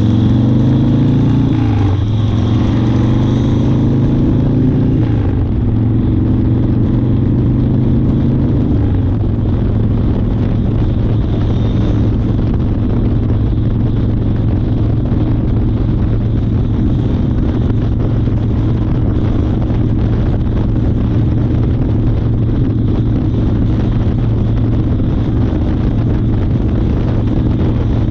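1992 Harley-Davidson Fat Boy's 1340 Evolution V-twin under way, pulling up through the gears: the engine note rises, drops at a shift, rises again twice over the first nine seconds or so, then holds steady at cruising speed.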